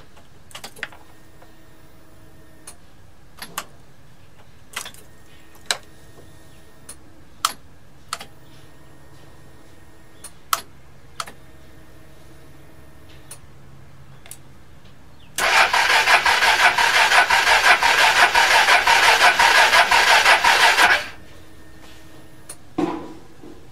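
Suzuki Skywave scooter's electric starter cranking the engine for about five seconds with an even pulsing rhythm, without it catching. Before that, the key ring hanging from the ignition gives a series of short clicks and jingles.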